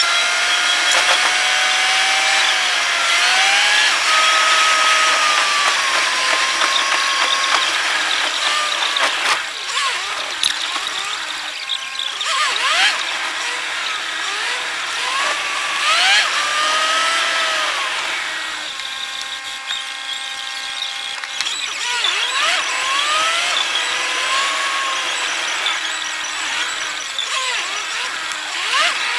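Car driving in city traffic, heard from inside the car: a high whine that rises and falls in pitch over a few seconds at a time, over a steady road noise.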